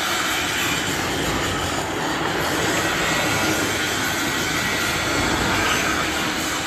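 Sheet-metal roll-forming machine running, a steady loud mechanical noise of metal being worked through the rollers.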